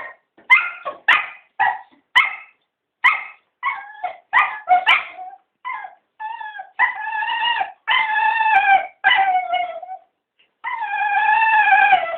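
Cocker spaniels yipping and whining in quick short bursts, then breaking into long, wavering, drawn-out howling whines. This is excited begging vocalisation.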